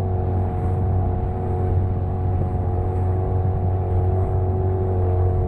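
The motor of a small wooden boat running steadily while under way: a constant drone with an unchanging pitch.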